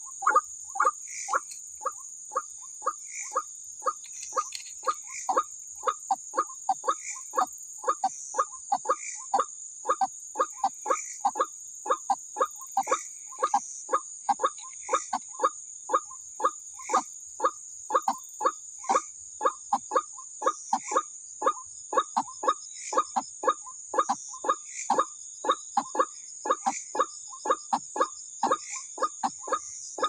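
White-breasted waterhen calling: a steady run of short notes, about two a second. Behind it is a continuous high-pitched insect trill.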